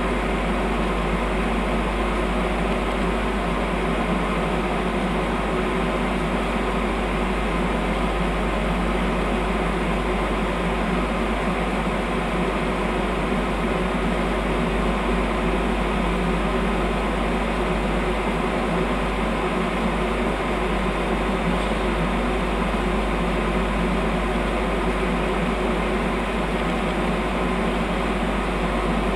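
Stationary EN64 Acatus electric multiple unit humming steadily: its fans and auxiliary equipment running while it stands at the platform, with several steady hum tones and no change in level.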